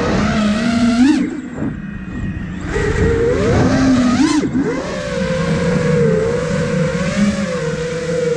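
Five-inch FPV racing quadcopter (iFlight Nazgul Evoque F5) brushless motors and propellers whining, the pitch swooping with the throttle. It eases off about a second in, climbs again around three to four seconds, then holds a steady, slightly wavering pitch for the rest.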